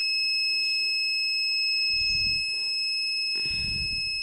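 Car parking-sensor buzzer sounding one continuous high-pitched beep, without a break. Two short low rumbles come underneath it, about two seconds in and near the end.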